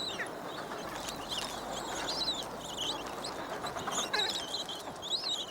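Adélie penguin colony: many short, high peeping calls from begging chicks over a steady dense babble of colony calls.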